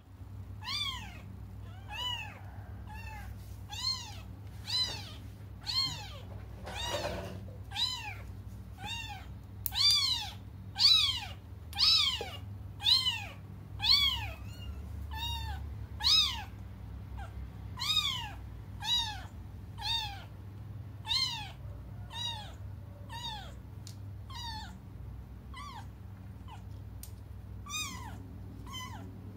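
Young kittens crying with a long run of high-pitched meows, about one call a second, each rising and then falling in pitch; loudest around the middle. They are crying for their absent mother.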